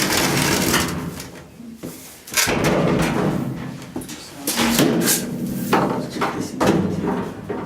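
Things being shifted and dragged about around a washing machine in a small laundry: a run of irregular knocks and bumps with longer scraping stretches between them.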